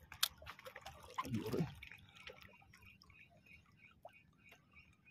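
Fishing reel clicking faintly and evenly, about four clicks a second, from about two seconds in. Before that come a few handling knocks and a brief low sound.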